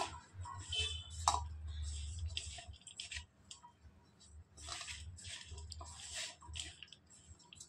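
Thin-sliced potatoes being mixed by hand into a thick spiced gram-flour and cornflour batter: wet squishing and rustling in short, irregular bursts, with one light clink about a second in.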